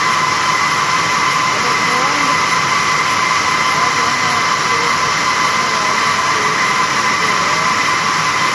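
Lohia circular looms running, weaving tubular sack fabric from flat plastic tape: a steady, loud mechanical din with a constant high whine.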